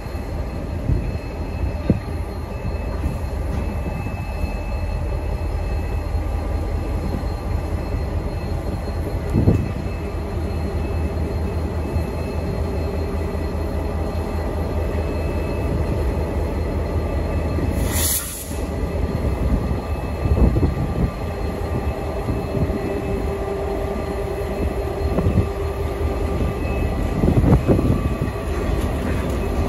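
Aurizon freight train's diesel locomotives rumbling past slowly on street-running track, with the wheels squealing on the rails in drawn-out steady tones. A short hiss a little past the middle.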